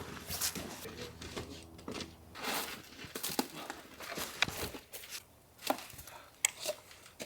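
Irregular crunching in packed snow, a short crunch roughly every second or so, as of footsteps or snow being pushed and broken up.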